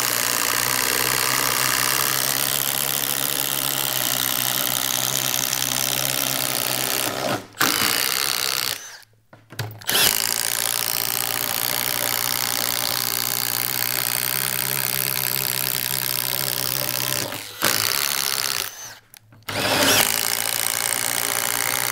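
Cordless Milwaukee M18 FUEL impact drivers boring holes with self-feeding spade bits, running steadily under load. They stop briefly about eight seconds in and again near the end, then start up again.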